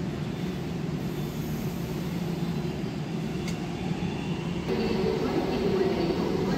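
Steady low rumble of an underground metro station platform, growing louder about two-thirds of the way through.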